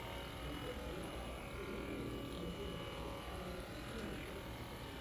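Hypervolt percussion massage gun running steadily, its motor buzzing as the head is worked into the IT band along the outer thigh.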